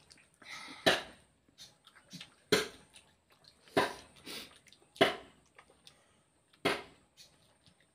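Wet, open-mouthed chewing and lip-smacking of rice and vegetable curry eaten by hand, a loud sharp smack about every second and a half with softer mouth noises between.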